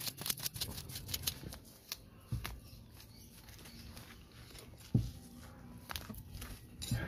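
A hand tool scratching and raking through potting soil and a matted mass of bonsai roots, loosening them for repotting. Rapid scratchy clicks come for the first two seconds, then sparser scrapes, with two dull thumps about two and a half and five seconds in.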